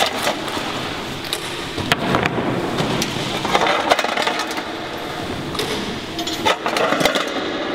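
Flat stones clacking and clicking against one another as a hand rummages through a cardboard box full of them and picks some up, with a rustle of shifting stones between the irregular knocks.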